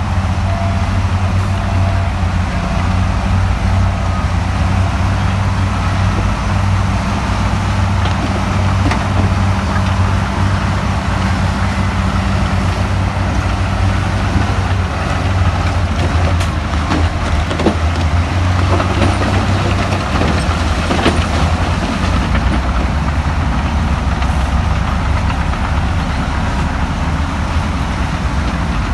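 Heavy diesel engine of earthmoving machinery running steadily with a deep, constant rumble, with a few sharp metallic clanks about halfway through.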